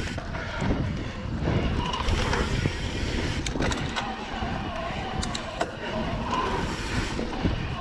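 Santa Cruz Heckler mountain bike rolling along a dirt singletrack: tyres rumbling over the dirt with wind noise on the microphone, and a few sharp clicks and rattles from the bike over bumps.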